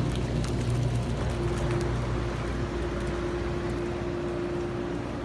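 Whirlpool bathtub jets running: a steady pump-motor hum under the rush and churn of water.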